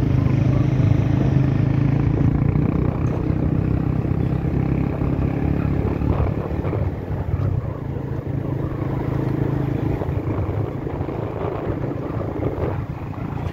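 Motorcycle engine running steadily while riding along a road. The engine note is strongest for the first six seconds or so, then drops a little and becomes less even.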